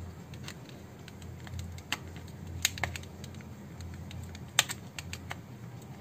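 Plastic housing of a Micromax keypad phone clicking as a metal pry tool works along its seam to unclip the case, a few irregular sharp clicks over a low steady hum.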